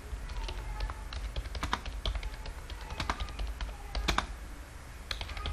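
Typing on a computer keyboard: irregular, uneven key clicks, over a steady low hum.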